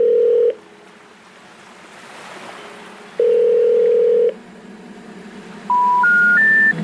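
Electronic telephone-style tones: a long steady beep, another a few seconds later, then three short beeps stepping up in pitch near the end, over a faint hiss.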